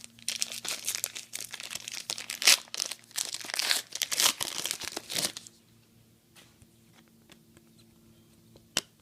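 Trading-card pack wrapper being torn open and crinkled for about five seconds, then quiet handling of the cards with one sharp tick near the end.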